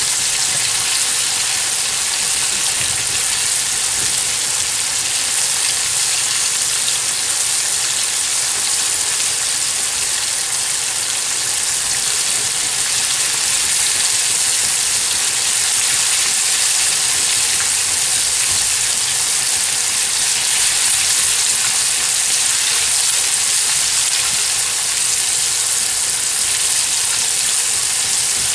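Battered squirrel pieces frying in a skillet of hot grease, with a steady, even sizzle.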